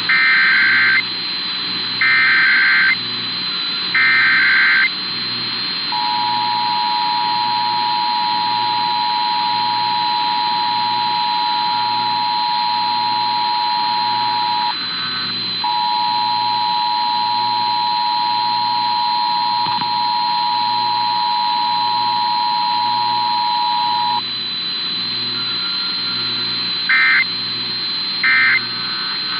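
Emergency Alert System alert off a broadcast receiver. It opens with three one-second bursts of buzzy SAME header data, then the steady two-tone attention signal sounds for about eighteen seconds with a brief break partway through. Near the end come three short end-of-message data bursts, all over a steady hiss, a high whine and a pulsing low hum.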